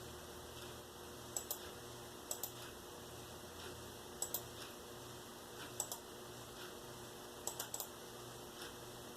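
Light, sharp clicks in quick pairs and threes, a group every second or so, like keys or a mouse button being pressed, over a faint steady electrical hum.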